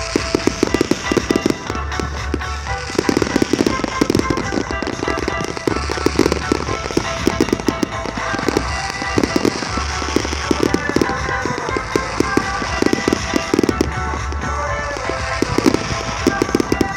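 Fireworks going off in rapid succession, many bangs and crackles close together, with rhythmic music playing underneath with a steady beat.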